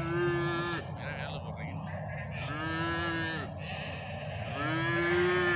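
Six-month-old calf mooing three times, each call about a second long and held at a steady pitch.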